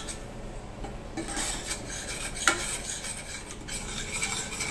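A steel spoon stirring and scraping thick chilli masala paste around a stainless steel pan, as the ghee roast paste is cooked down until the ghee separates. There is one sharp clink of the spoon against the pan about halfway through.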